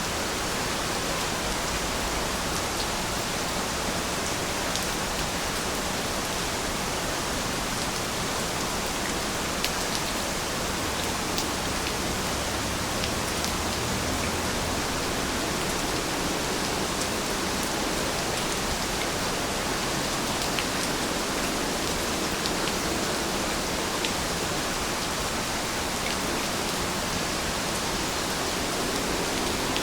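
Steady rain falling, a dense even hiss with scattered individual drop ticks.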